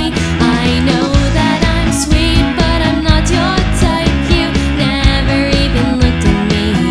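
Loud pop-rock song with singing over guitar, bass and drums.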